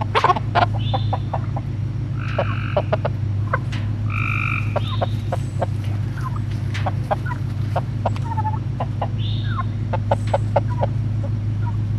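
Young chickens clucking and giving short squawks in a small coop, a hen just put in with two young roosters. The calls come in scattered bursts, some falling in pitch, over a steady low hum.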